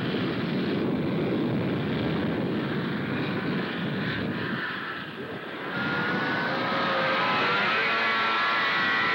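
Two-stroke snowmobile engines running as the sleds ride across the snow. About five seconds in the sound dips briefly, then a higher engine whine comes in and climbs slowly in pitch as a sled speeds up.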